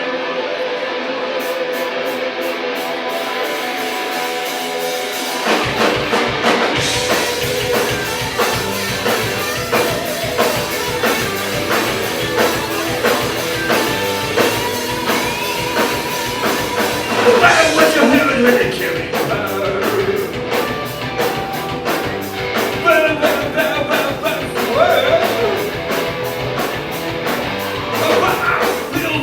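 Live rock band playing: guitar alone at first, then the full band with drums comes in suddenly about five and a half seconds in, with a steady beat.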